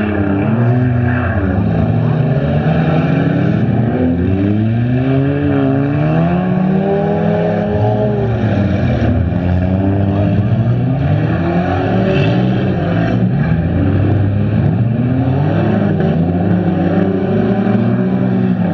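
Several front-wheel-drive stock car engines revving up and down, overlapping one another as the cars race and jostle around the track.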